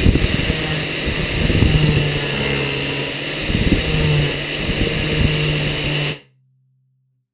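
Electric angle grinder with an abrasive sanding disc running and grinding against the wooden guitar neck blank, a steady motor whine under the rough scraping of the disc on the wood, shaping the neck. It cuts off suddenly about six seconds in.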